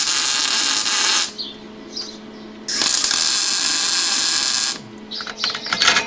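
Electric arc welding: two spells of steady hiss, about a second and a half and then about two seconds long, with a low steady hum underneath.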